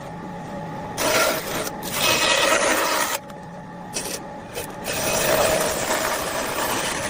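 A tool cutting into wood in several long, noisy strokes, each lasting a second or more, with short pauses between them.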